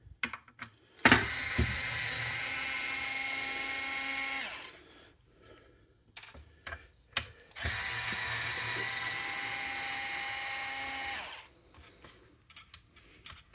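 Electric screwdriver running twice, each run about three and a half seconds of steady whine that drops in pitch as it winds down, as it backs out case screws. Light clicks and knocks of handling come between the runs.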